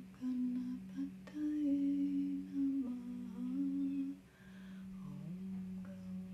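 A voice humming a slow, wandering melody over a steady low drone, like soft meditation music. The humming drops away about four seconds in while the drone carries on.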